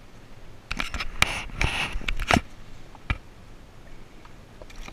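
A pickerel splashing and thrashing at the water's surface as it is lowered in by hand and released: a quick run of splashes and knocks about a second in, then one more knock.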